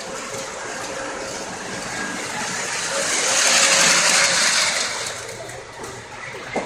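A model train running on the display layout, its running noise swelling to a peak about four seconds in and then fading.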